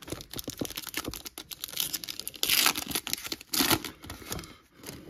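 Foil wrapper of a Topps Chrome baseball card pack crinkling and being torn open, with two louder rips a little after halfway through.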